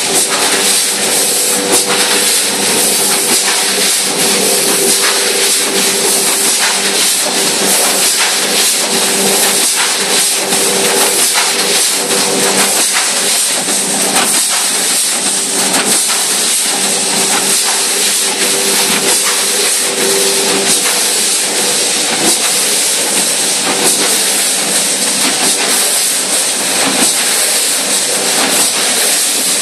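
Rotary premade-pouch packaging machine running: a loud steady hiss with many rapid clicks and clatter and a steady hum.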